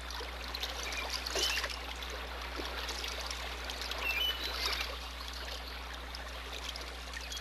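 Mountain stream water running and splashing as people wade through it, over a steady low hum.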